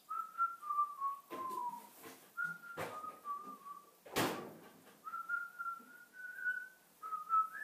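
A person whistling a wandering tune in short phrases, with a few clicks and knocks between them and one louder knock about four seconds in.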